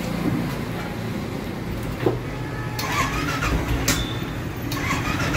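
Royal Enfield Classic's single-cylinder engine starting up and running at a steady idle, its carburettor freshly cleaned after flooding with petrol. A few sharp knocks sound over it about two to four seconds in.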